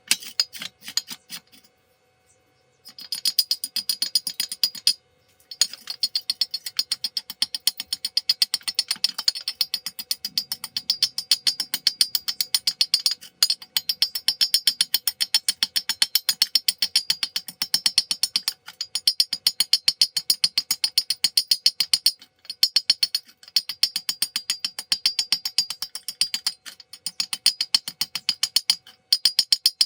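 Stick welding arc on round pipe, a fast sharp crackle that breaks off briefly several times and starts again as the arc is stopped and re-struck.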